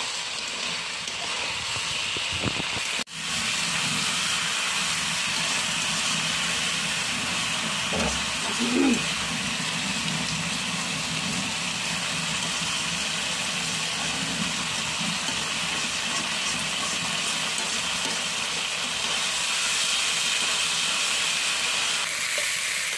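Duck curry sizzling in a steel wok as it is stirred with a metal spatula: a steady frying hiss that drops out briefly about three seconds in.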